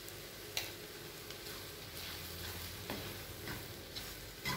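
Garlic, ginger, green chillies and curry leaves sizzling gently in hot oil in a nonstick pan, on lowered heat, as chilli powder is stirred in with a wooden spatula. The spatula clicks against the pan a few times.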